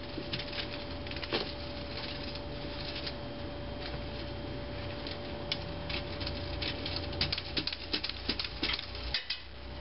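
Fan rake tines scratching and scraping through loose seeded soil in quick, irregular strokes, busiest in the second half, with boot footsteps on the dirt. A steady faint hum runs underneath.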